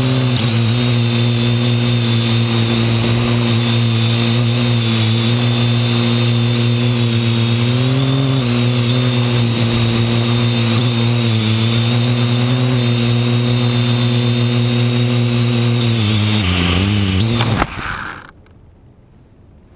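Parrot AR.Drone quadcopter's four electric motors and propellers buzzing in flight, a steady drone with a high whine whose pitch wavers briefly a couple of times. Near the end the pitch dips and wobbles, then the motors cut out as the drone sets down.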